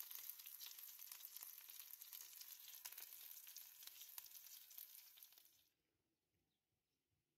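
Chicken pieces frying in a pan: steady sizzling with many small crackles, which cuts off suddenly after about five and a half seconds.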